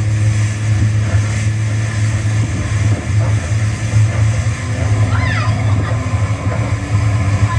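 Jet ski engine running steadily at speed, with water spray and wind rushing past. A woman's high laugh breaks in briefly about five seconds in.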